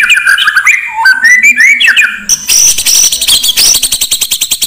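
Oriental magpie-robin (kacer) song: clear whistled notes jumping up and down in pitch, then from about halfway a fast, harsh rattling chatter of many sharp clicks a second.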